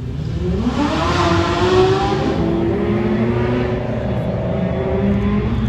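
A car's engine accelerating hard: its note climbs steeply over the first second, then holds high and fairly steady. A rush of exhaust and road noise swells about two seconds in and fades.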